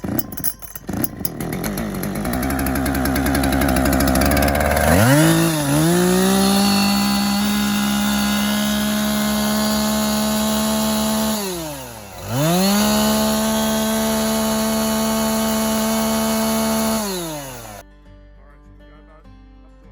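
Greenworks Pro 80V cordless chainsaw's electric motor spinning the chain up to a steady high-pitched whine. Its speed dips and comes straight back up a little past the middle. Near the end the trigger is released and it winds down to a stop.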